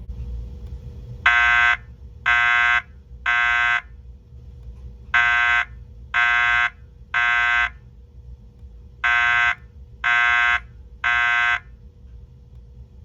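Fire alarm speaker/strobes sounding a temporal-three evacuation tone: three buzzy horn-like beeps of about half a second each, the group of three repeated three times with a pause between groups. This pattern is the standard signal to evacuate for a fire. A faint steady hum lies underneath.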